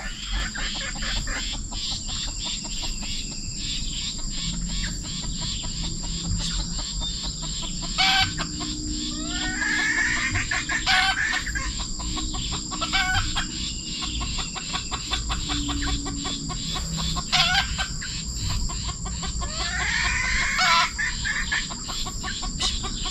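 Red junglefowl rooster crowing twice, once about eight seconds in and again near the end, each crow rising and then falling away. A few sharp knocks come between the crows, over a steady high-pitched tone.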